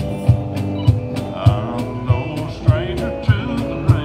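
Live country song played on guitar and cajón: the guitar strums chords and the cajón keeps a steady beat of deep strikes a little under twice a second. A man's singing voice comes in about a second and a half in.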